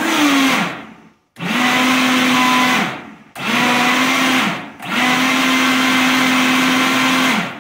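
Vitamix 5000 blender running on high in four runs of about one to two and a half seconds each, the motor pitch dropping away each time it is switched off, as it blends a thick avocado and banana mix.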